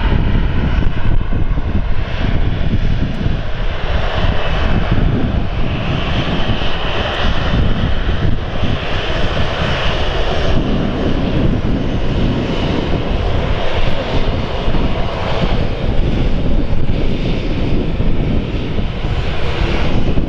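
Boeing 737's two turbofan engines running steadily as the airliner rolls along the runway close by: a loud, even rushing noise with a faint whine over it in the first couple of seconds.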